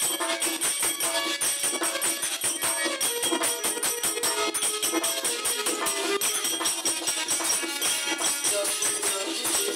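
Harmonium and dholak playing an instrumental passage of a Hindi devotional bhent. Held harmonium chords run under quick, steady drum strokes, with a bright jingling edge to the percussion.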